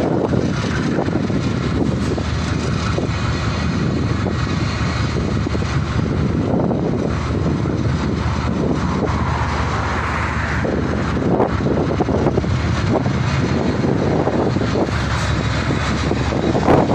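Diesel-electric locomotives of a freight train, DXB, DC and DXC classes working together, running steadily and loudly as they approach at low speed.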